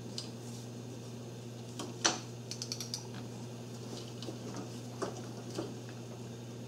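Wrench and socket clicking on the intake camshaft sprocket bolt as it is tightened to 50 foot-pounds: one sharp click about two seconds in, then lighter scattered clicks. A steady low hum runs underneath.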